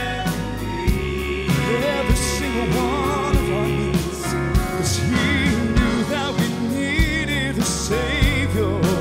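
Southern gospel male vocal quartet singing live, backed by piano and drums keeping a steady beat of about two hits a second. Held notes with vibrato come in the second half.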